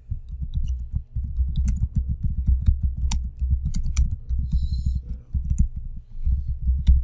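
Typing on a computer keyboard: a fast, continuous run of keystrokes heard mostly as dull low thuds, with a few sharper key clicks.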